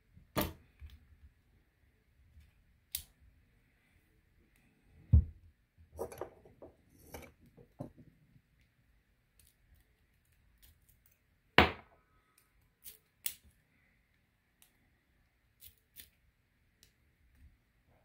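Metal parts of an Assa Twin Exclusive lock cylinder clicking and clinking as they are handled and fitted together during reassembly. Scattered sharp clicks, with a dull knock about five seconds in, a quick run of clicks just after it, and a loud click near the middle.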